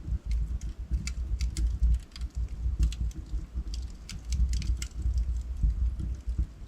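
Wood fire burning in a fireplace: logs crackling and popping in quick irregular clusters over a steady low rumble of the flames.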